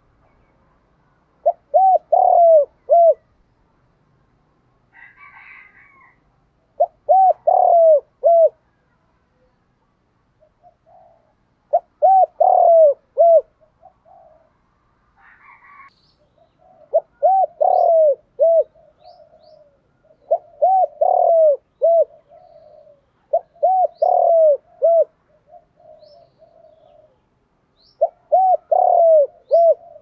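Spotted dove cooing: seven phrases, each a quick run of four or five falling coos, repeated every few seconds, with softer murmuring between them. Faint high chirps from small birds behind it.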